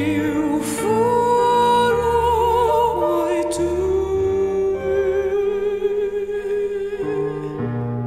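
Music: a slow, held melody line with vibrato, sung in an operatic style, over sustained low bass notes.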